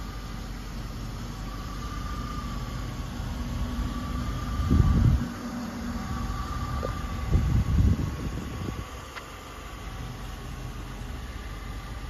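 Steady low outdoor rumble with a faint wavering hum above it. Wind buffets the microphone in two louder gusts, one about five seconds in and one about eight seconds in.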